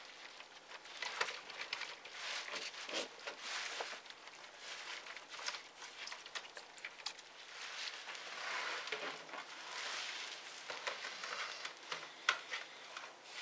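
Handling noise from laptop reassembly: scattered small clicks and taps of a tool and fingers on the plastic and metal parts of the open laptop, over light scraping and rustling. A longer sliding scrape comes about eight seconds in, and the optical drive is set against its bay near the end with a sharp click.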